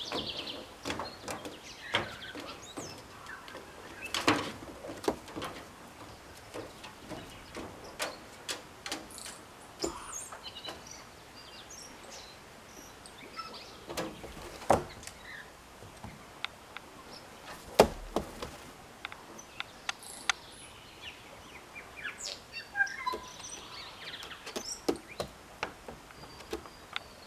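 A tui singing in the background: brief chirping and whistled notes, bunched near the start and again about twenty seconds in, with many sharp clicks and knocks scattered throughout.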